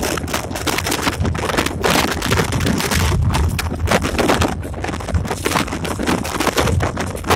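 Cab interior of a moving EMD SD24 diesel locomotive: the turbocharged V16 diesel runs with a low hum under steady wheel and track noise, while the cab rattles and clatters irregularly over rough track. Wind buffets the microphone.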